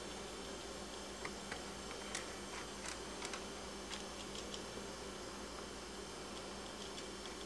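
Faint scattered clicks and light scratching as pet rats move about in a wire cage, over a steady hiss and low hum. The clicks come mostly in the first half and thin out toward the end.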